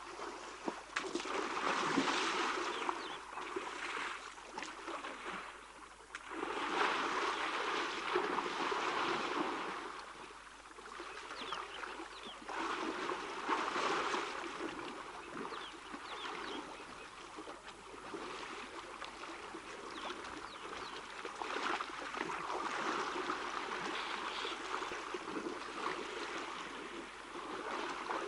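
Shallow waterhole water sloshing and splashing as African elephants wade and roll in it, coming in uneven surges that swell and fade every few seconds.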